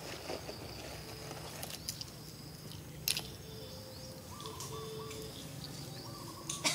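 Outdoor ambience with birds chirping and whistling, broken by two sharp clicks, one about three seconds in and another near the end.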